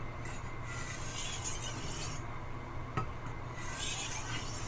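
Steel chef's knife blade drawn across a water stone in long Western-style sharpening strokes: a few rasping passes, each about a second long, with short pauses between.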